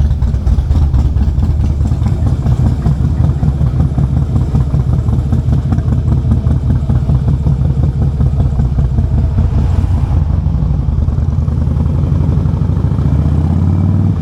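Motorcycle engine running steadily, its pitch rising over the last few seconds.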